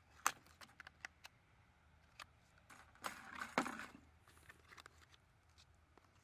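Quiet handling of plastic: a run of small clicks and scrapes from a knife cutting thin plastic, then about a second of plastic crinkling and rubbing some three seconds in, as a small plastic cup is pushed into the hole of a plastic basket.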